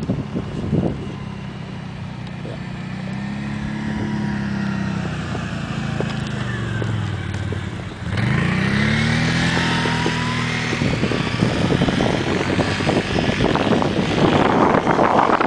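A 4x4 truck's engine revving up and down as it drives, with a sharp rise in pitch about eight seconds in. Wind buffets the microphone through the second half.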